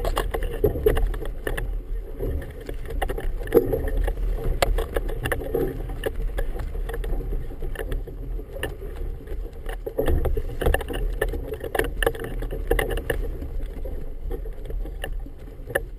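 Wind buffeting a GoPro in its housing aboard a boat, a steady low rumble, with choppy water slapping the hull and a flag flapping in the wind, giving many irregular snaps and knocks.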